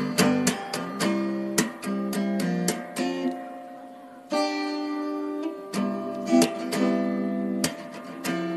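Background music played on acoustic guitar, with plucked notes and strummed chords that ring and fade. A fresh chord comes in after a fading pause about four seconds in.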